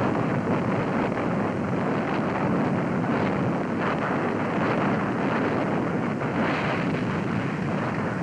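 Steady rushing noise of wind and sea aboard a ship at sea, with no distinct shots or impacts.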